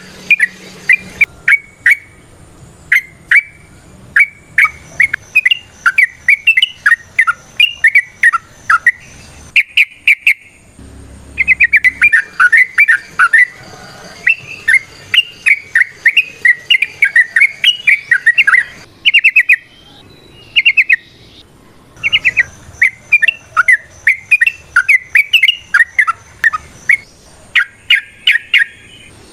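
Yellow-vented bulbul (trucukan) singing a fast, chattering song: rapid runs of short bubbling notes in phrases a second or several seconds long, with brief pauses between them.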